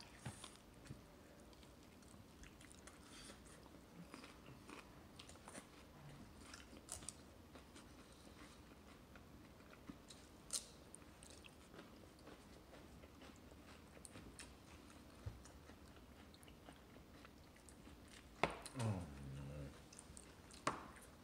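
A baby chewing and gnawing on a fried chicken wing bone: faint, scattered small clicks and mouth sounds. A short voice sound, the loudest thing here, comes near the end.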